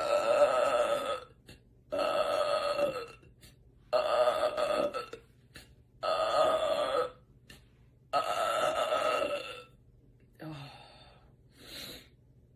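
A woman belching loudly: five long burps, each about a second, coming about every two seconds, then two shorter, fainter ones near the end.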